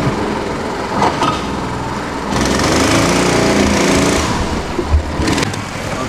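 Small outboard motor on a wooden river boat running. For a couple of seconds in the middle it revs up and back down, and there is a short thump about five seconds in.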